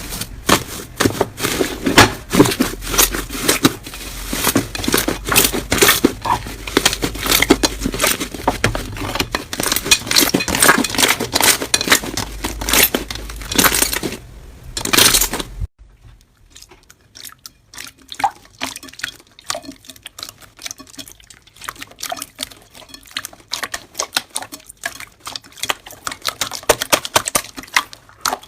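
Slime being squeezed and worked by hand, making dense crackling and popping clicks. About sixteen seconds in it cuts abruptly to a quieter clip of softer, sparser clicks and pops.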